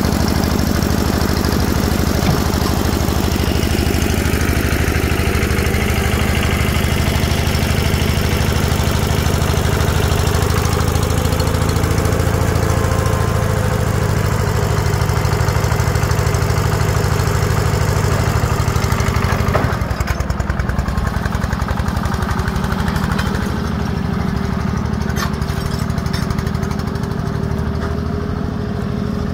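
Small power-tiller diesel engine on a converted tractor running steadily, then driving off about 20 seconds in, after which it sounds farther away.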